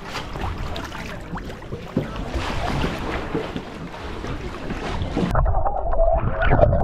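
Seawater sloshing and splashing around a camera held at the surface, with wind on the microphone. About five seconds in, the camera goes under and the sound turns suddenly muffled and dull, the splashing heard from underwater.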